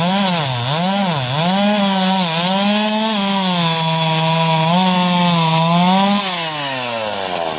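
Two-stroke chainsaw cutting into a felled tree trunk. Its engine speed rises and dips several times over the first couple of seconds, then holds fairly steady in the cut, and falls away steadily near the end.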